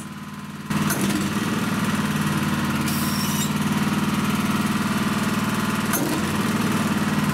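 Honda HS970 snowblower engine running while its electromagnetic clutch is switched on and off. The sound jumps louder as the clutch engages about 0.7 s in, with clicks, and brief high squeals come about three seconds in and again near the end. The owner finds the squeal when the clutch disengages abnormal, a sign that the clutch needs its gap checked and adjusted.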